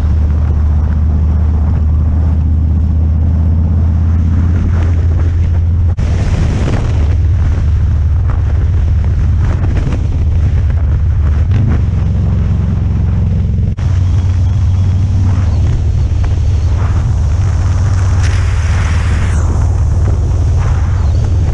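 Harley-Davidson motorcycle's V-twin engine running on the move, a deep steady rumble mixed with wind buffeting on the microphone. The sound changes abruptly about six seconds in and again near fourteen seconds.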